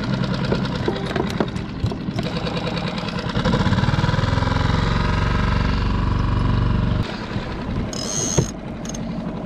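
Small outboard motor on a one-person skiff running steadily at trolling speed, growing louder for a few seconds in the middle before easing back.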